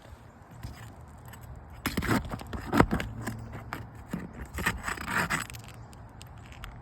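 Scraping and sharp clicks as a roofing nail is pried out of an asphalt shingle, loudest about a third of the way in.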